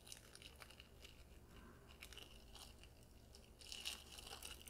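Faint crinkling and small clicks of a disposable spoon's plastic wrapper being opened, getting louder near the end.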